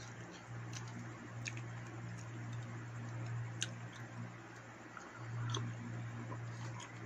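Quiet eating sounds: a man licking his fingers and chewing the last mouthfuls, with a few light clicks, the sharpest a little past halfway, over a steady low hum. Near the end he lifts a steel tumbler to drink.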